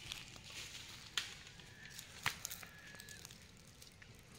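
Footsteps on dry fallen leaves: a few faint, scattered crackles, about a second in and again a little after two seconds, over a quiet outdoor background.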